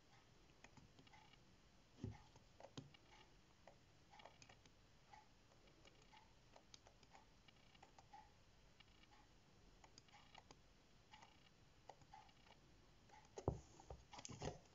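Faint clicks and soft taps of an accordion-folded paper booklet being folded up by hand on a table, with a louder knock or two near the end as the folded stack is set down.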